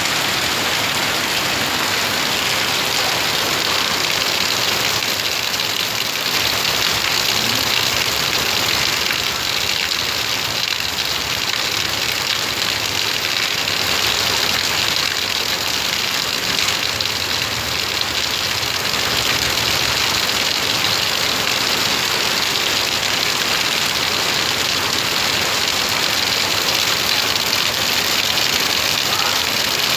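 Heavy rain pouring steadily, with vehicle engines running close by.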